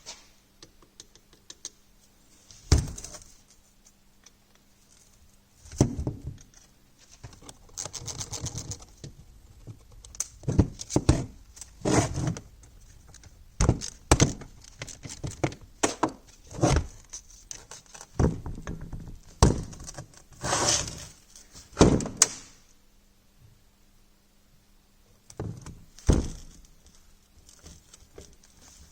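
A series of knocks, clinks and short rattles from hand tools and metal starter-motor parts being handled and set down, about fifteen separate hits at uneven intervals over a faint steady hum.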